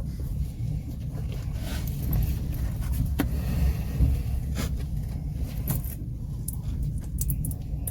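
Passenger train running on the rails: a steady low rumble with scattered clicks and scrapes.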